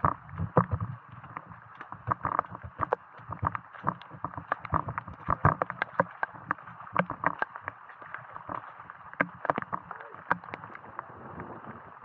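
Footsteps splashing and squelching along a muddy, rain-soaked trail, with many irregular knocks and taps over a steady hiss of heavy rain.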